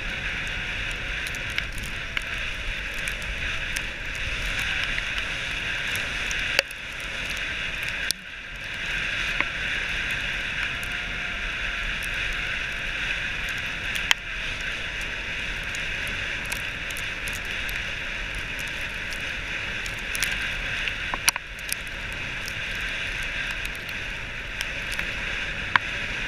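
Wheeled dog-sled rig rolling over packed snow: a steady hiss and crunch from the tyres, with a few sharp knocks and rattles from the frame.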